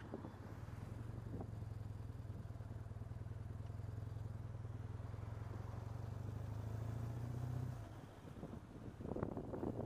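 Motorcycle engine pulling steadily under way, its low drone rising slightly then dropping off as the throttle is closed about eight seconds in. Wind buffets the microphone near the end.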